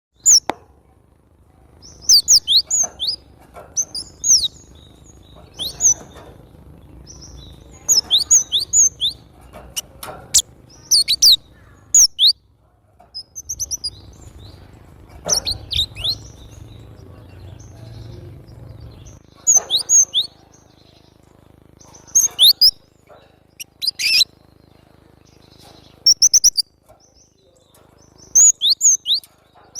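Cinereous tit (glatik batu) singing: short bursts of sharp, high chirping notes repeated every couple of seconds, with a few sharp clicks in between.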